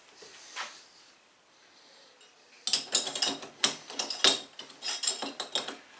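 Metal door knob being worked onto its spindle: a faint knock under a second in, then from about halfway a quick, irregular run of metallic clicks and rattles as the knob is slid and turned into place.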